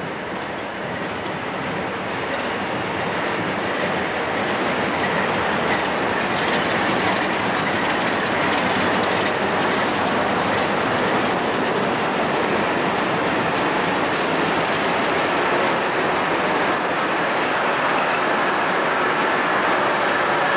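Two heritage NSW diesel locomotives, a 43 class and a 44 class, passing close at low speed with their carriages, their engines running, with wheels clattering over the rail joints and squealing faintly on the curve. The sound swells over the first few seconds as the locomotives draw level, then holds steady as the train goes by.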